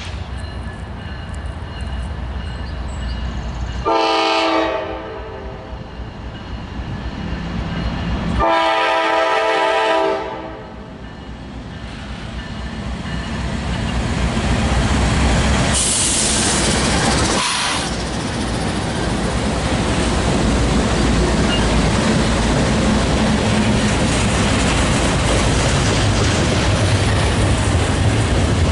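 Locomotive air horn sounding a chord: a short blast, then a longer one a few seconds later. The train then comes past, loudest about halfway through, and its cars roll by with a steady rumble.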